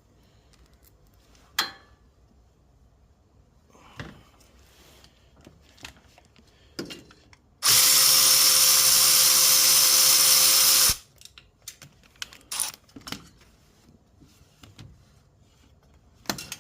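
Power drill running steadily for about three seconds past the middle, with scattered light clicks and clinks of tools and metal parts before and after it.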